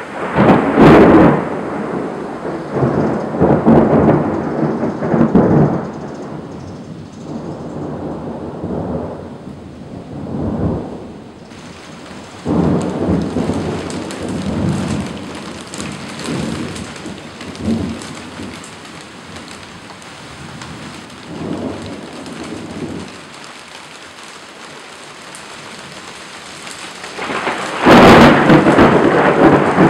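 Thunder rumbling again and again in long rolling swells, the loudest starting just before the end, over the hiss of falling rain.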